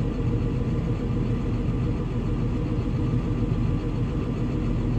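Tractor diesel engine running steadily: a continuous low rumble that stays level throughout.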